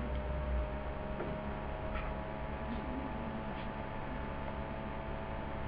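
Steady electrical mains hum and background hiss of the recording, with a couple of faint short clicks.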